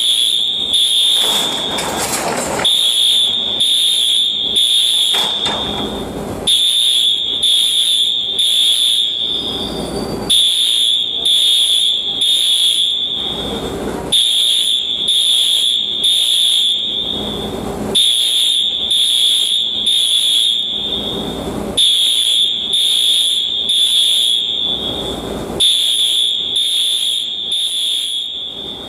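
School fire alarm sounding its evacuation signal: a loud, high-pitched horn tone in three pulses, then a short pause, repeating about every four seconds in the temporal-three pattern.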